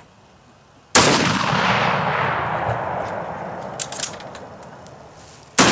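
A Mosin-Nagant bolt-action rifle firing a shot about a second in, its echo rolling away slowly over several seconds. A few sharp metallic clicks follow about three seconds later as the bolt is worked, and a second shot goes off right at the end.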